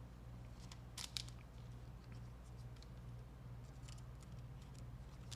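Trading cards and their plastic holders being handled: faint scratchy rustles, with two sharp clicks about a second in and more light ticks near four seconds, over a low steady electrical hum.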